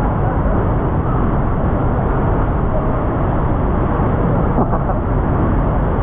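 Pagsanjan Falls pouring into its pool close by: a loud, steady rush of falling water, heaviest in the deep low end.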